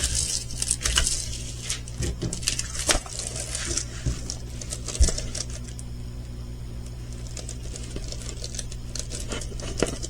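Light clicks, taps and rustles from handling a diamond painting kit's plastic bags and canvas on a tabletop, busiest in the first half and thinning out to a steady low room hum.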